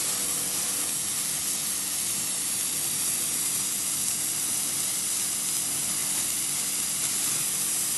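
Hand-held firework burning with a steady hiss as it throws out sparks.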